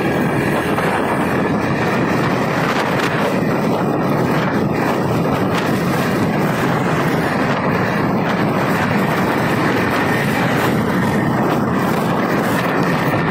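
Steady road noise of a motorbike ride: wind rushing over the phone's microphone with the engine running beneath, even throughout.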